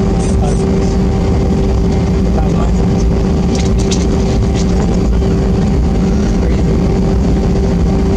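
Cabin noise inside an Airbus A320 while taxiing: a steady rumble of engines and airflow with a constant hum tone running through it.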